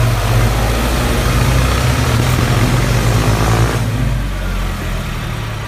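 Tractor engine running steadily at idle, under a loud hissing rush that cuts off about four seconds in.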